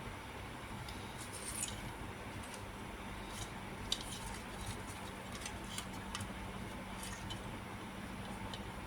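Scattered light clicks and ticks, about a dozen and irregular, the sharpest about four seconds in, over a steady background hiss and faint hum.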